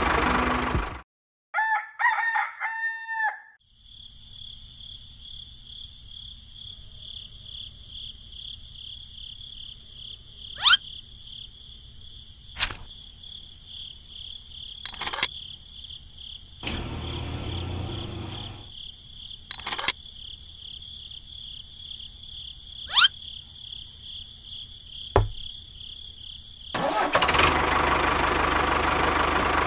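A rooster crows once, about two seconds in. After it comes a steady, pulsing high-pitched background with scattered sharp clicks and a few short rising chirps. A small engine is running at the very start and starts again near the end.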